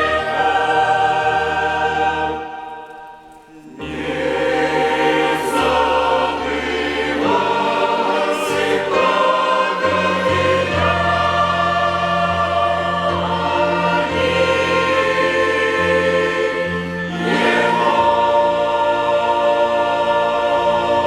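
Church choir singing a hymn in sustained chords with a violin orchestra accompanying, breaking off briefly about three seconds in before the voices and strings come back in.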